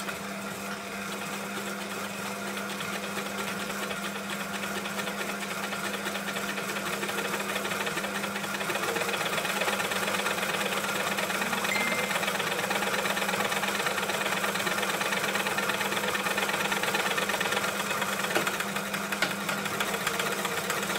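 Elnalock L4 four-thread overlocker running steadily under the foot pedal, overlocking the edge of a fabric strip as a first test seam after being threaded from scratch. It grows a little louder over the first several seconds.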